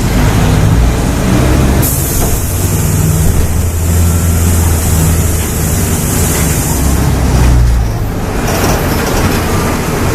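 Diesel engine of a Volksbus 17.230 OD Euro V bus pulling hard at high revs, a loud steady drone with a hiss over it from about two seconds in. About eight seconds in the engine note and the hiss drop away as the throttle lets off.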